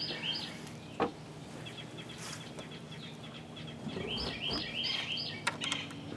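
A songbird singing short repeated chirping phrases, at the start and again about four seconds in. A single sharp wooden knock about a second in and a dull thump around four seconds in come from the wooden access lid of a chicken coop being handled and lowered shut.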